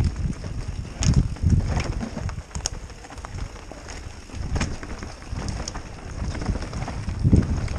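Mountain bike riding fast down a dirt forest trail, heard from a helmet-mounted camera. Wind buffets the microphone in uneven rumbles, with scattered knocks and rattles from the bike over bumps. The buffeting is strongest about a second in and again near the end.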